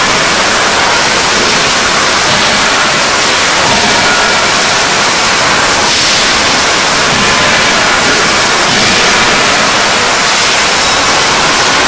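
Loud, steady hiss-like din of a forging shop floor with drop hammers and presses running, with a few faint machine whines and no distinct hammer blows standing out.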